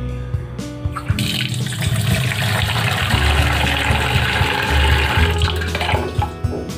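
Tap water running into a steel bowl in a stainless-steel sink, starting about a second in and easing off near the end, over background music with a steady bass.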